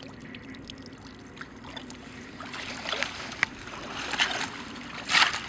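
Someone in waders wading through shallow pond water with broken skim ice floating on it: a few splashing, sloshing strides that get louder as he comes closer, the loudest near the end.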